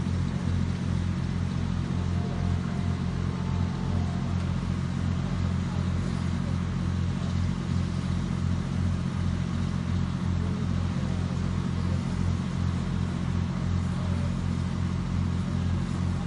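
A steady low machine hum, like an engine or generator running, with a slight flutter and no change in pitch.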